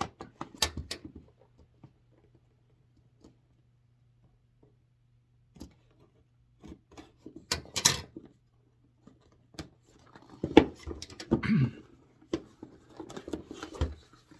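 A cardboard jigsaw puzzle box being opened and its packaging handled: scattered taps, scrapes and rustles, a sharp crackle about eight seconds in, and a busier stretch of handling near the end.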